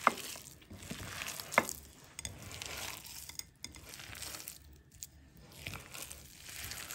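Hands mixing a sausage-and-grated-cheese cutlet mixture in a bowl: irregular squishing and rustling that comes and goes, with a few sharp clicks, the loudest right at the start and about a second and a half in.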